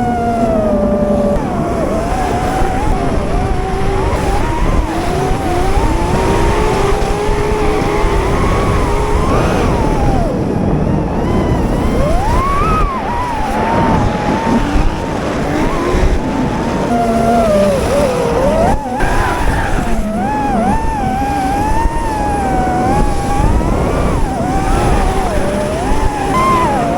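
Motors running hard with a pitch that wavers up and down constantly, over a steady rushing noise.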